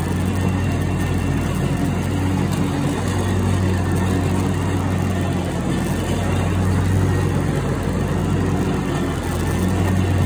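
Engine of a Skag ride-on mower running at a steady speed while cutting grass, a constant low drone.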